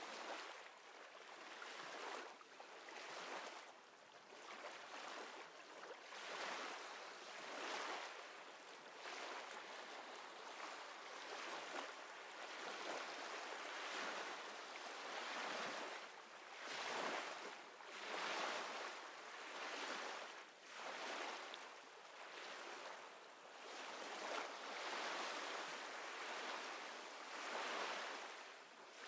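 Ocean waves washing in and out, a soft rushing hiss that swells and fades every two to three seconds.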